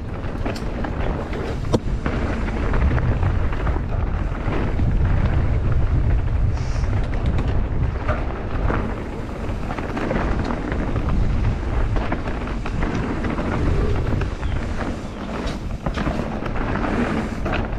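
Wind rumbling on the microphone of a mountain bike descending a rocky trail, with the tyres and bike rattling and knocking over rocks and roots.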